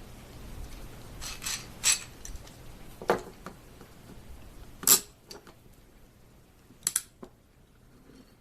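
A clamp being fitted and tightened on a glued-up mandolin neck and fretboard: a handful of sharp clicks and knocks, the loudest about five seconds in, with a quick double click near the end.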